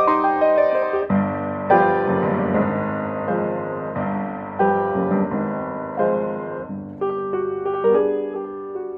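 Solo piano music: chords and melody notes struck one after another at a moderate pace, as a silent-film score.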